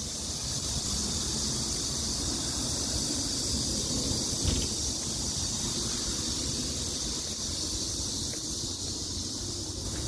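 Wind buffeting a phone's microphone as a low, uneven rumble, over a steady high hiss.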